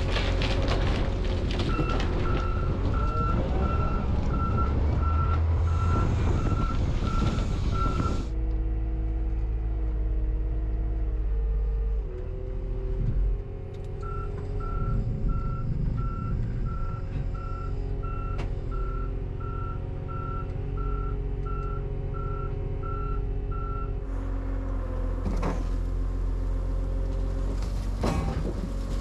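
A heavy vehicle's backup alarm beeping at about three beeps every two seconds over its running engine. The beeping runs twice: for several seconds near the start, then stops, then resumes for about ten seconds in the middle.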